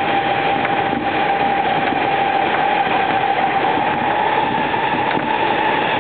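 Running noise of an electric commuter train heard from inside the passenger car at speed: a steady rumble of wheels on rails, with a thin whine that slowly rises a little in pitch.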